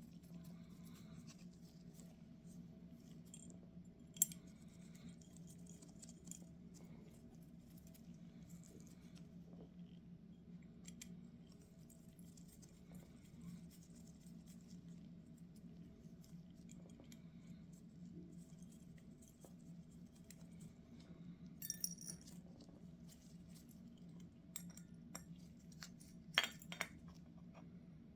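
Small metal parts and hand tools clicking, clinking and scraping during hand disassembly of a Zenith 35/40 INAT carburetor's secondary throttle vacuum actuator. The sounds are sparse and faint, with a sharp click about four seconds in and louder clusters of clinks about twenty-two and twenty-six seconds in, over a steady low hum.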